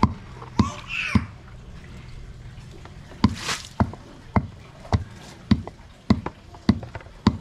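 Water splashing in a plastic tub, then poured out of the tipped tub onto the ground a little over three seconds in. Sharp knocks repeat evenly through it, a little under twice a second.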